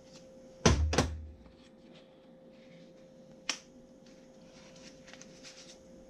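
Small items and packaging handled on a tabletop: two sharp knocks in quick succession about a second in, then a single click a few seconds later, with faint rustling between.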